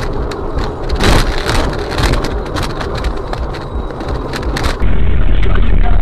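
Crunching and a rapid string of sharp cracks inside a crashing car as it tears through trees and brush, its windscreen shattered; loudest about a second in. Near the end it cuts suddenly to a loud, steady low rumble of road noise from another vehicle's dashcam.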